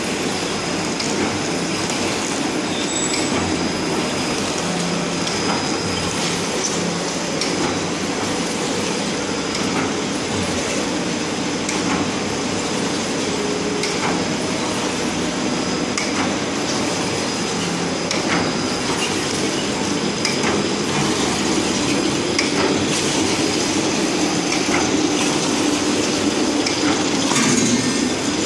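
Automatic single-roll toilet paper flow-wrapping machine running: a steady mechanical clatter with frequent light clicks and a thin, steady high whine.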